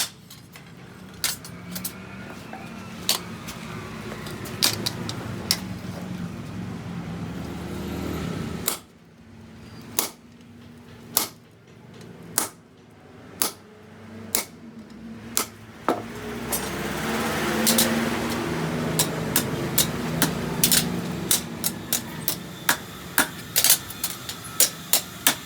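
Hammer blows on steel during forging: sharp ringing strikes, spaced out at first and coming two or three a second near the end. Under them runs a steady machine hum that drops out about nine seconds in and comes back about sixteen seconds in.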